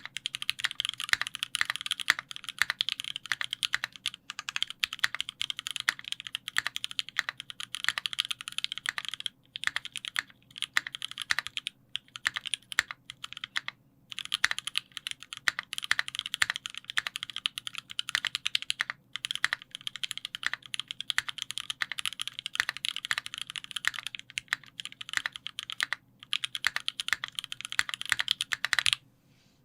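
Fast typing on a Monstargear Sangeo 60 custom mechanical keyboard with lubed JWK Snow White linear switches, an aluminium plate and GMK Noel keycaps: a rapid, continuous run of key clacks broken by a few brief pauses, stopping just before the end.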